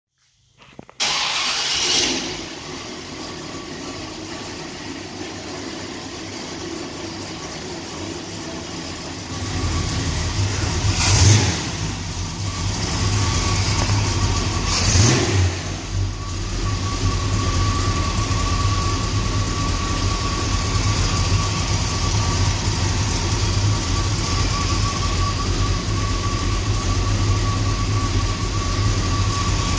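1965 Chevrolet C10's carbureted V8 engine being started about a second in, catching and settling into a steady idle. It is blipped twice, about four seconds apart, before going back to idling with a deep exhaust rumble.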